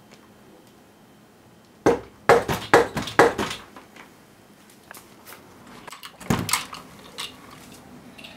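Five sharp knocks in quick succession, about a second and a half in all, then a single softer knock a few seconds later.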